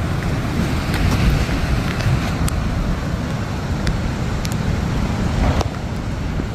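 Strong wind buffeting the microphone over heavy surf breaking on the shore, a steady rumbling noise with a few faint clicks.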